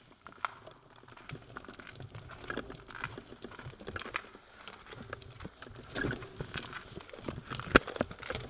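Footsteps on the towpath inside a long brick canal tunnel: a string of irregular knocks and scuffs, with one sharp click near the end.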